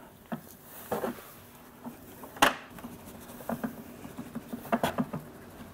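Sawdust being poured from a plastic bucket into a plywood box: a light patter and rustle of falling wood shavings with scattered small ticks, one sharper knock about two and a half seconds in, and denser ticking towards the end.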